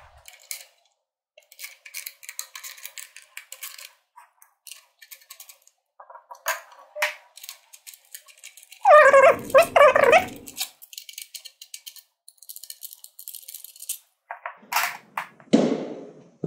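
Small clicks, taps and scrapes of screws and plastic air-cleaner parts being handled and loosened by hand, scattered throughout. About nine seconds in, a louder pitched call with a wavering pitch lasts about a second and a half, and a few louder knocks come near the end.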